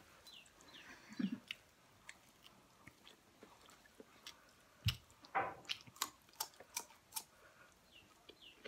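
Close-miked chewing and mouth sounds of people eating a meal with their hands: scattered wet smacks and crisp clicks. A single dull thump comes about five seconds in.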